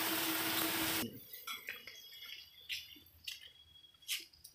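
A steady machine hum with a single droning tone, which cuts off abruptly about a second in. After it come faint scattered light clicks and taps.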